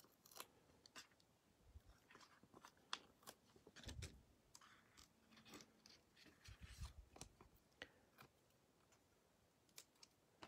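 Faint, scattered ticks and crinkles of paper handling: foam dimensionals being peeled from their backing sheet and pressed onto the corners of a cardstock panel.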